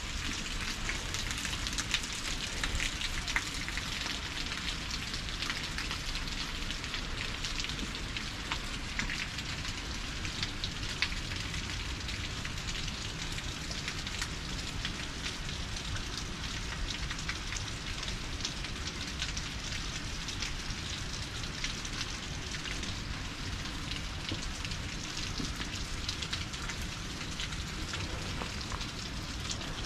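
Steady rain falling, with scattered drops ticking close by, over a low steady rumble.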